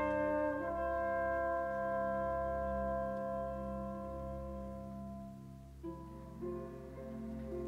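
Concert wind band playing a slow film-score passage: a trumpet holds a long note over soft sustained chords that fade over several seconds. About six seconds in, a new quiet chord enters with a few light notes on top.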